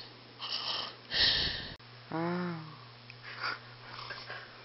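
A sleeping person's heavy, snore-like breaths in two loud rasping bursts, the second the louder. About two seconds in comes a short moaning vocal sound whose pitch dips and rises.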